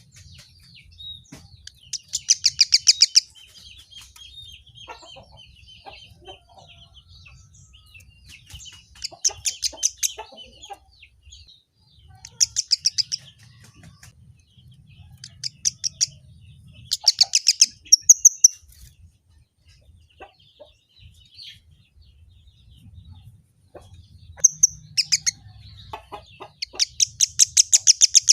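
Kemade munia singing: bouts of rapid, high, clicking chatter every few seconds, each a quick train of short notes lasting one to three seconds. A faint low hum runs underneath.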